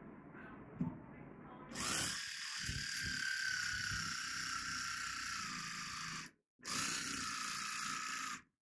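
Small electric motor of a power carving knife running with a steady whine as it saws into pumpkin, in two runs with a sharp stop for a moment about six seconds in.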